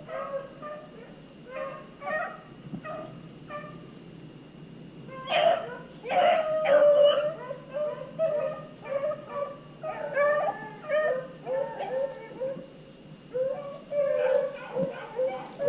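A pack of beagles baying while running a rabbit: many short, repeated yelping calls, louder from about five seconds in.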